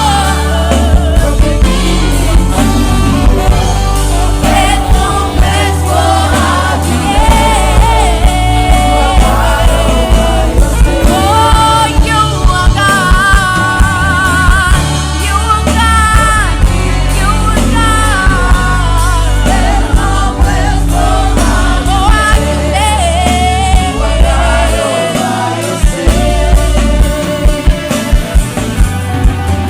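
Gospel worship song: a sung melody over a band with heavy bass and a steady beat.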